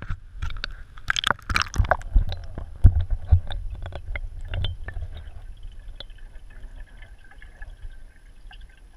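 An action camera being plunged into an aquarium tank: splashing, sloshing and knocks from handling in the first five seconds or so. These give way to a quieter, steady, muffled underwater noise.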